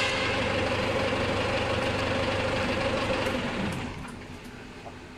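PLD1200 batching machine's geared electric drive motor running steadily, then switched off about three and a half seconds in, its pitch falling as it runs down.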